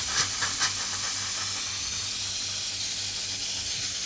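LPG used as refrigerant hissing steadily as it is vented out of a refrigerator's sealed refrigeration system, its pressure falling toward zero.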